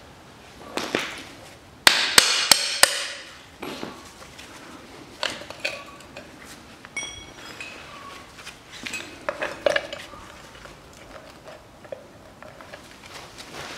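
Metal knocks, clinks and scraping as a flat screwdriver is worked into the seam of a spare-wheel winch's riveted metal housing to pry it open. A quick cluster of sharp knocks comes about two seconds in, and a short metallic ring around seven seconds.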